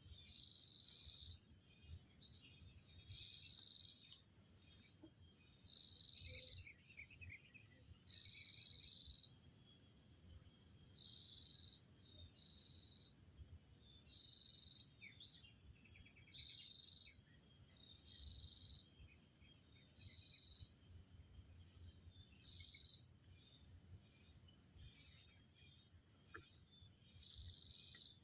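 Quiet outdoor ambience: a steady high insect drone, with a high-pitched call repeated about a dozen times, each about a second long and coming every two seconds or so.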